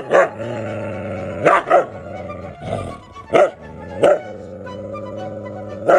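A husky barking in short, sharp barks, about seven in all, some in quick pairs, over steady background music.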